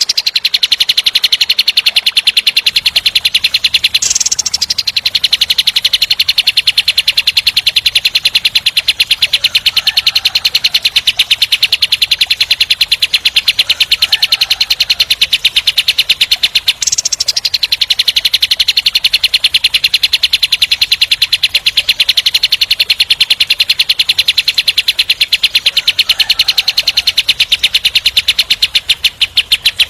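Kapas tembak songbird singing a long, very rapid, tightly packed trill of rough repeated notes, with a short higher note cutting in at about four seconds and again at about seventeen seconds.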